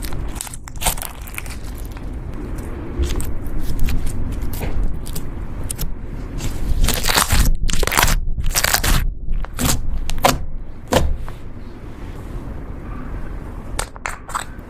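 Slime being squeezed and worked by hand: irregular crackling and crunching, densest about halfway through.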